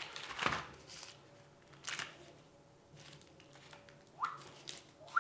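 Small cardboard firecracker boxes being handled and set down on a wooden floor: a few scattered light taps and rustles, with quiet between them.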